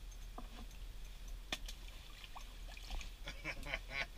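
Small clicks and rattles of ice-fishing rods and reels being handled. About three seconds in comes a quick run of short, high squeaks.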